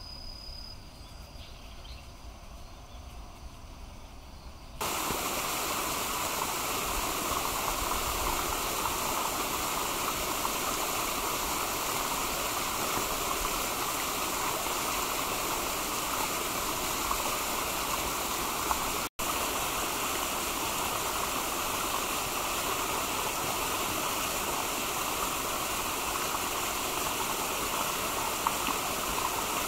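Steady rushing noise like running water, starting abruptly about five seconds in and holding even, with a momentary dropout near the middle.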